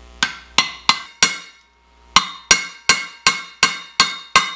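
Hammer striking a socket to drive a new wheel bearing into a motorcycle wheel hub, pushing on the bearing's outer race. Four ringing metallic taps, a short pause, then a steady run of taps at about three a second.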